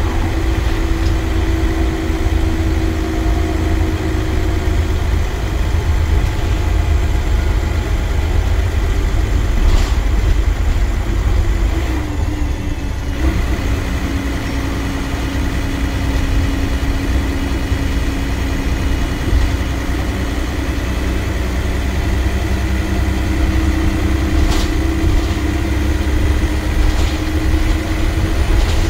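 Dennis Trident double-decker bus under way, heard from the upper deck: a steady low engine drone and road rumble. The engine note drops in pitch about halfway through and climbs again near the end, with a couple of short knocks from the body.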